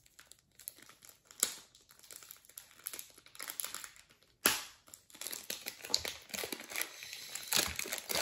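Clear plastic wrapping crinkling as it is pulled off a speed cube, with scattered light clicks and one sharp snap about four and a half seconds in.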